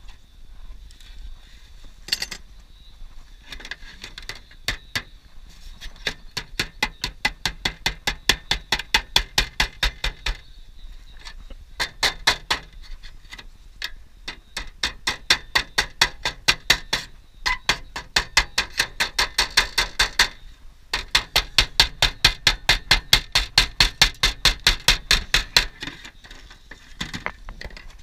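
Quick, even hammer taps on aluminium roofing sheet, about four blows a second, in runs of several seconds with short pauses between them, as the sheet is beaten into shape.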